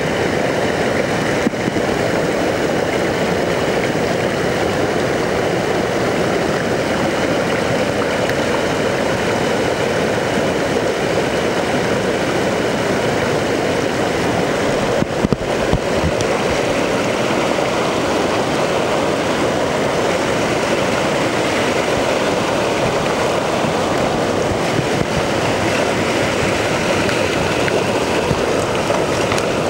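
Barron Falls in full flood: a steady, heavy rush of floodwater pouring over rocks and down the gorge.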